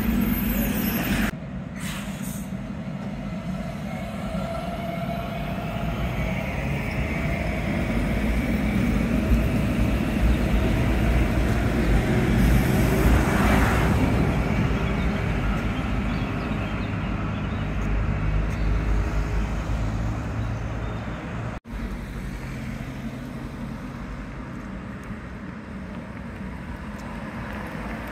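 Rubber-tyred Translohr tram running past on its guided track: a steady low rumble of tyres and drive with a faint electric whine, swelling about halfway through as it goes by close. The sound cuts off abruptly twice, with street traffic underneath.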